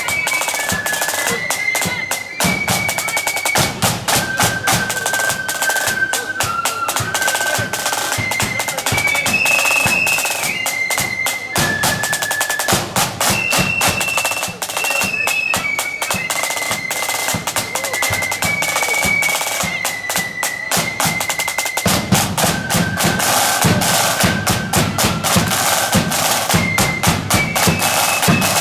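Marching band playing a tune on high-pitched flutes over snare and bass drums, the drumming growing heavier about three-quarters of the way through.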